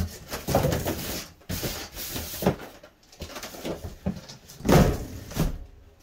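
Styrofoam packing pieces scraping and rustling as they are pushed into a cardboard box, with knocks and a heavier thump a little before five seconds in.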